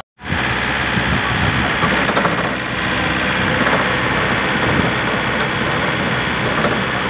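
A 4WD farm tractor's diesel engine idling steadily.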